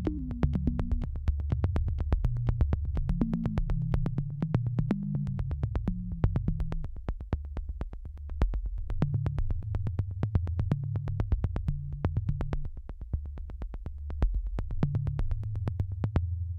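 Background electronic music: a synthesizer bass line with a steady ticking beat about four times a second; the ticks stop shortly before the end.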